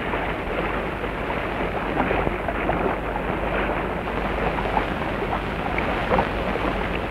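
A steady, even rushing noise with a few faint, brief sounds scattered through it.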